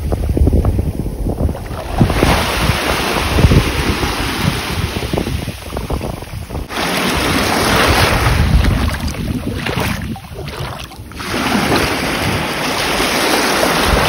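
Sea waves washing onto the shore, the rush swelling and ebbing every few seconds, with strong wind gusting across the microphone.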